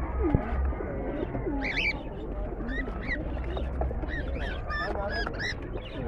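Caged market birds calling together: pigeons cooing low beneath many short, high chirps repeated throughout.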